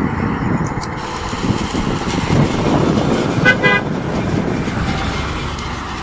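KamAZ fire engine's diesel engine and tyres as the truck drives past, growing louder to a peak near the middle. About three and a half seconds in, it gives a short horn toot.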